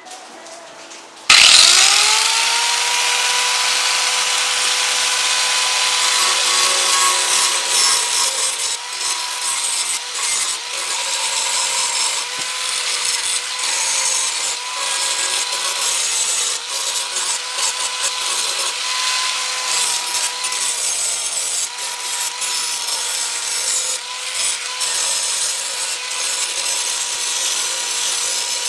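Electric grinder switched on about a second in, its motor whining quickly up to speed, then grinding steadily against steel as a dull lawnmower blade's cutting edge is sharpened.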